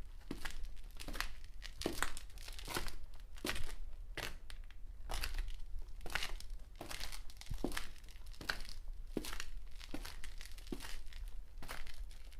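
Footsteps on concrete at a steady walking pace, each step a short gritty scuff of a shoe sole on the hard floor.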